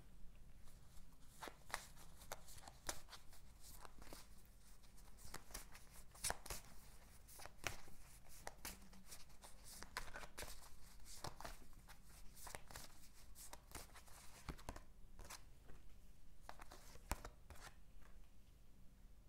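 Tarot cards being shuffled by hand: a run of irregular, light clicks and slaps of card on card.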